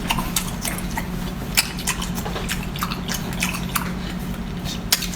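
A person chewing and smacking close to the microphone: irregular wet clicks and smacks of eating, over a steady low hum.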